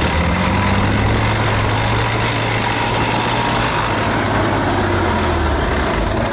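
M5 High Speed Tractor driving past on its tracks, its engine running steadily under load.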